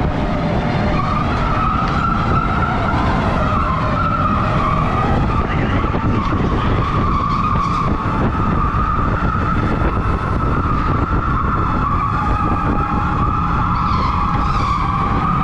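Electric go-kart motor whining steadily at a high pitch that wavers slightly as the kart speeds up and slows through the corners, over the rumble of the kart and its tyres sliding on the track.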